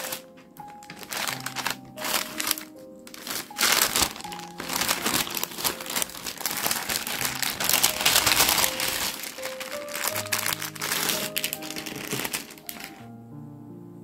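A paper bag crinkling and rustling as hands handle and open it, in irregular bursts that grow busiest mid-way and stop about a second before the end. Soft piano music plays underneath.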